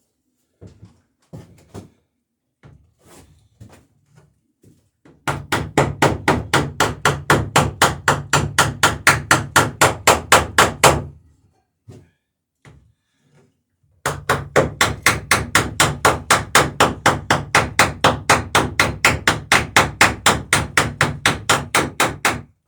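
Hammer riveting the planking of a wooden dory, peening rivets over burrs against a bucking iron: two long runs of rapid, even strikes, about six a second, with a short pause between them and a few scattered light knocks before the first run.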